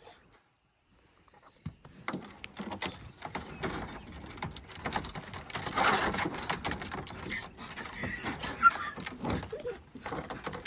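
Irregular rattling and knocking from a wire dog crate and tailgate as beagles move about and one is handled and lifted down. It starts about two seconds in.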